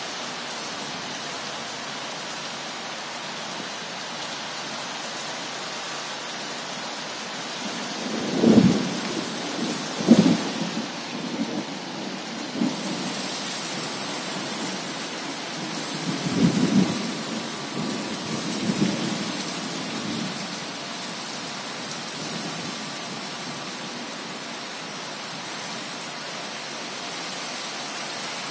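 Heavy rain pouring steadily onto a swimming pool and its deck, an even hiss. A few short, loud low rumbles break through about eight to ten seconds in and again about sixteen to nineteen seconds in.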